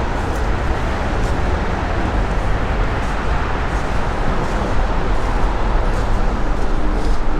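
Steady, loud outdoor rumble: a dense noise with most of its weight low down, with a few faint clicks.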